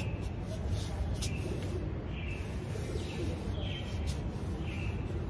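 A bird calling outdoors, repeating a short, slightly falling chirp about once a second or so, over a steady low background rumble.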